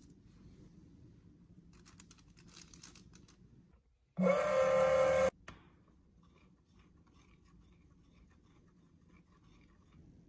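Faint crinkling and light clicks of tissue paper being pressed by hand. Then a loud steady tone with several pitches lasts about a second and starts and stops abruptly, followed by faint small clicks and taps from handling the compact case and glue tube.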